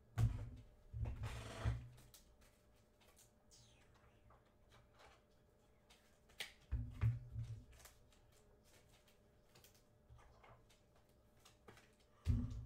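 Brief handling noises from trading cards being sorted on a tabletop: a few separate low thumps with rustling, about a second in, around seven seconds in and again near the end, with faint ticks between.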